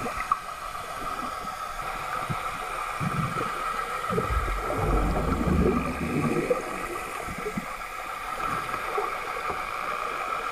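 Underwater water noise: rushing and gurgling water over a steady high hum, swelling into a louder low rumble for a few seconds in the middle as the dolphin swims right up against the camera, trailing bubbles.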